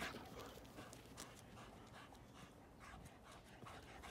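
Near silence with faint, scattered soft crunches of footsteps in fresh snow.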